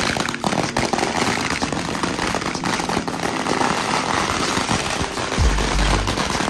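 A string of firecrackers going off, a rapid, continuous crackle of small bangs. A low steady rumble comes in near the end.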